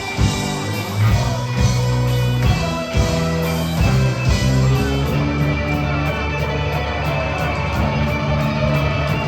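Rock band playing live in an instrumental break: electric guitars over sustained bass notes and drums, with no vocals. From about halfway through, a fast, even cymbal beat joins in.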